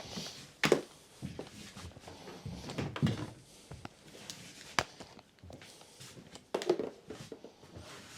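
Solid ash desktop panel being handled and flipped over: a series of wooden knocks and thuds, the loudest about two-thirds of a second in and about three seconds in, with a sharp click near five seconds and another thud near seven, and quieter shuffling in between.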